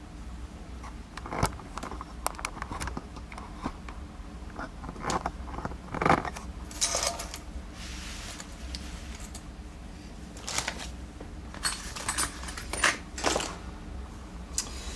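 Small metal objects being handled and moved on a workbench: scattered clicks and light clinks with brief rustles.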